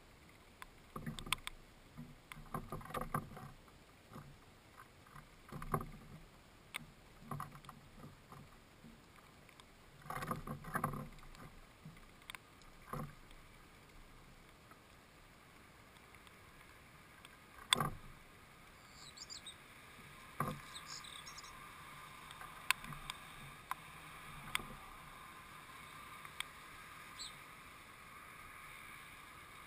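A house sparrow feeding in a wooden bird feeder: irregular clusters of pecks, knocks and scratches on the wood, with one sharp knock about 18 seconds in. Faint bird chirps about 19 to 21 seconds in.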